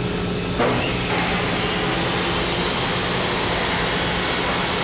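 Custom-built cut-to-length machine starting suddenly about half a second in and running steadily with a loud hiss-like noise as it cuts a sheet of oak plywood to length for a drum shell.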